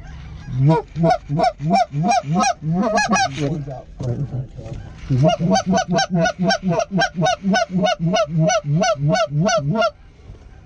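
Goose calls blown in fast, even clucks of about three a second, each note breaking sharply from low to high; two calls overlap in the first few seconds, then after a short pause one call clucks on steadily, calling to a circling flock of geese.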